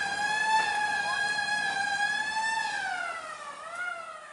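A vehicle siren wailing at a steady pitch, then winding down in pitch and fading out over the last second or two.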